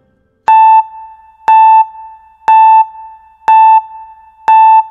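Countdown timer sound effect: five short beeps of the same pitch, one a second, counting down the time to answer.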